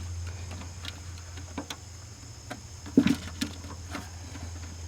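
Small metallic clicks and taps as MIG welding wire is hand-fed through the drive-roll mechanism of a Hobart MIG welder into its liner tubing, with a sharper click about three seconds in, over a steady low hum.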